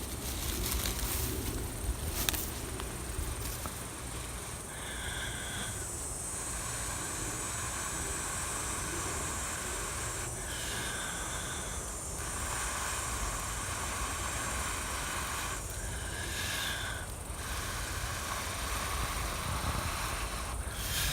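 A person blowing long, steady breaths onto a smouldering coal in a tinder bundle, a breathy hiss that stops briefly three times for a new breath. This is the blowing that coaxes the coal to smoke more thickly toward flame.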